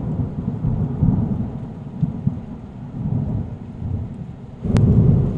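Rolling thunder rumbling low and unevenly, then a sharp thunderclap a little before the end, followed by a loud rumble.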